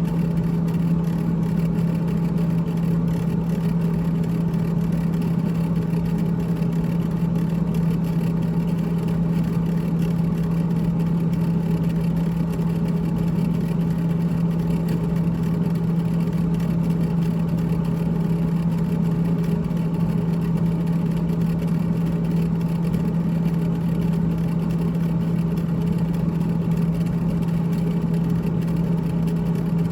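GE GTH18XCTZRBB refrigerator's evaporator fan running with a rattle and a steady hum, unchanging throughout.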